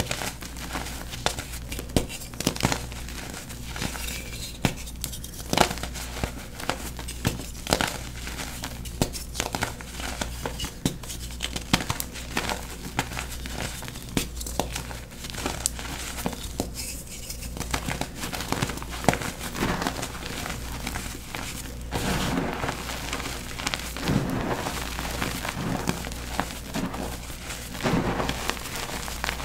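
Blocks of gym chalk crumbling and being crushed by hand: a dry crackling with many sharp snaps, turning denser and more continuous in the last third.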